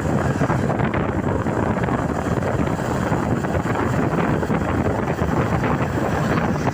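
Wind buffeting the microphone over the steady rumble of a moving vehicle, with no horn tune heard.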